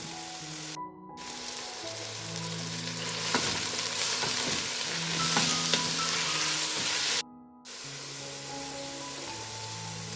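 Slow background music with long held notes over a steady hiss. The sound cuts out abruptly twice, about a second in and again after about seven seconds.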